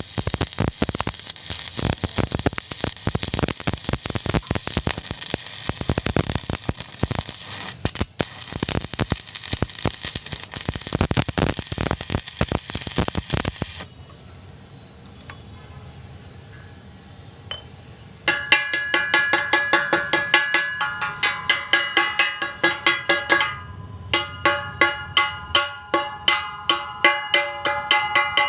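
Stick-welding arc crackling and spitting steadily, stopping about fourteen seconds in. After a few seconds of low hum, from about eighteen seconds in, there are repeated ringing metallic hammer strikes on the steel, two or three a second, typical of chipping slag off a stick weld.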